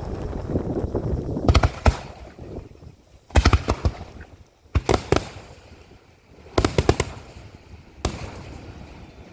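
Fireworks display finale: aerial shells bursting in quick clusters of sharp bangs, a new cluster every second and a half or so, with a low rumble of echoes between them.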